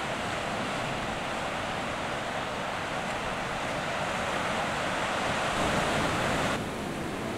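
Sea surf breaking and washing over rocks, a steady rushing wash that swells louder toward six seconds in, then drops off abruptly.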